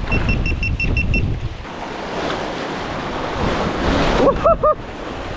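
Ocean surf washing and breaking over rocks, with wind on the microphone. It opens with a quick run of about seven short, high electronic beeps, and about four seconds in three short rising-and-falling cries stand out over the wash.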